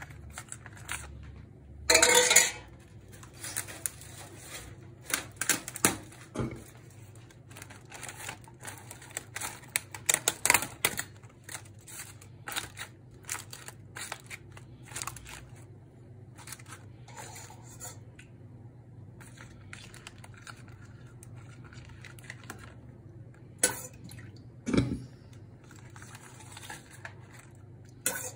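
Metal ladle clinking and knocking against a round metal tray as milk is ladled over stacked güllaç sheets: irregular clinks, the loudest about two seconds in, with a run of them midway and a few more near the end.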